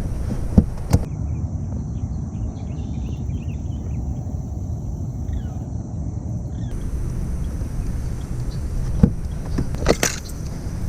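Steady low rumble, with a few sharp knocks about a second in and again near the end.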